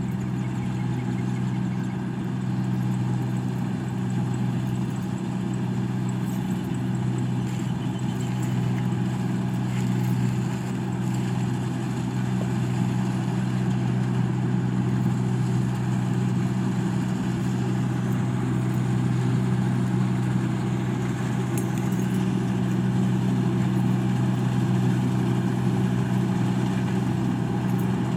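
Engine of a rice paddy machine running steadily at constant speed, a loud, even low hum that does not change.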